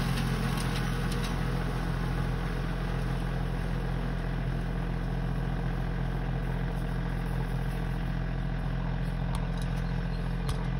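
Kioti compact tractor's diesel engine running steadily.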